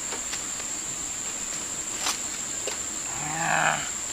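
A steady high-pitched insect drone throughout. About three seconds in comes a short, rough, growl-like sound lasting under a second.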